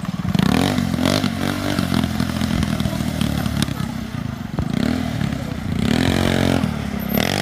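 ATV engine revving in repeated surges, its pitch rising and falling several times as the throttle is worked.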